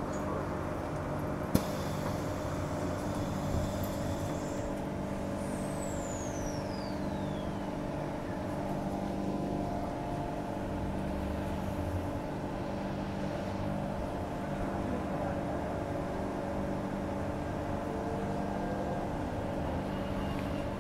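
Interior of a Walkers A-series electric multiple unit pulling away from a station: steady electrical hum and running noise. A sharp thump about a second and a half in is followed by a hiss for a couple of seconds, and a whistle falls in pitch from about six to eight seconds in.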